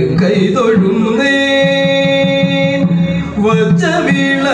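A voice singing a Malayalam devotional lamp-lighting verse, drawing out one long held note about a second in before the melody moves on again.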